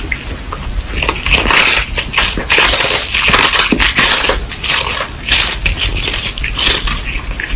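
A cat chewing on a hard dried treat stick close to the microphone: a continuous run of irregular crunches and crackles as it gnaws with its side teeth.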